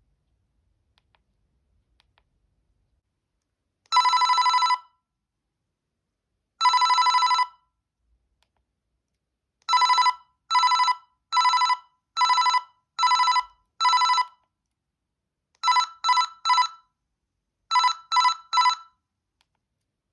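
Panasonic G60 mobile phone playing a beeping electronic ringtone. It gives two long tones, then a run of six shorter evenly spaced beeps, then two groups of three quick beeps.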